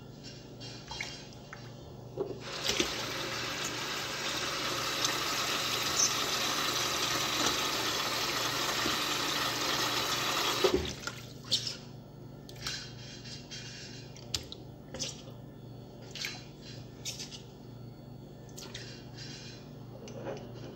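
Kitchen tap running into a stainless steel bowl of fish pieces as they are rinsed by hand, a steady splashing rush that starts about two seconds in and stops abruptly near the middle. After it, a scatter of short clicks and small splashes as the wet fish is handled in the bowl.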